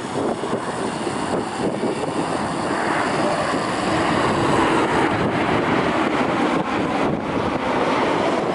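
Boeing 737 MAX airliner's CFM LEAP-1B jet engines at approach power as it passes low on final approach with gear down. A steady rushing roar that grows a little louder over the first few seconds and then holds.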